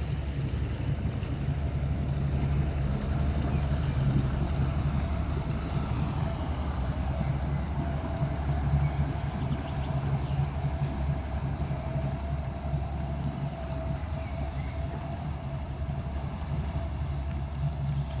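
Motor cruiser's inboard engine running steadily at slow speed, a low rumble with a faint steady hum above it.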